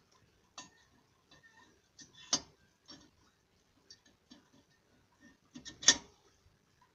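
Hand winch on a boat trailer being cranked, its ratchet giving an uneven run of metallic clicks, with two louder clacks about two and a half seconds in and near the end.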